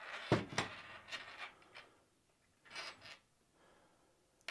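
Wires and crimped metal terminals being handled and rubbed in the hand, making a few short scraping rustles in the first second and a half and another about three seconds in.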